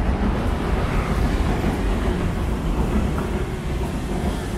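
Steady, loud rumble of city road traffic.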